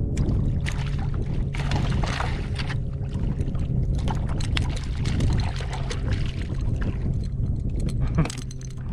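Water sloshing and lapping against a kayak hull, with many small clicks and knocks and a steady low hum underneath.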